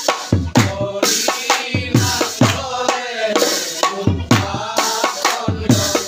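Men singing a devotional chant together to a hand drum's deep strokes, each one falling in pitch as it fades, with sharp hits on the beat.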